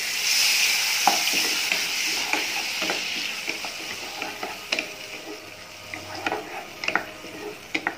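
Diced tomatoes sizzling in hot melted margarine in a pot, the sizzle loudest as they go in and dying down over the next few seconds. A wooden spatula stirs them, with scattered light knocks against the pot.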